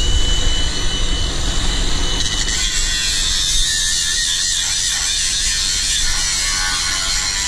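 Handheld angle grinder starting with a steady high whine, then biting into the edge of a steel plate about two seconds in and carrying on with a harsh, continuous grinding noise.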